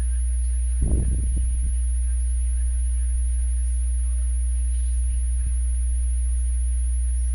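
Steady low electrical hum with a faint high-pitched whine above it, with a brief low voice-like sound about a second in.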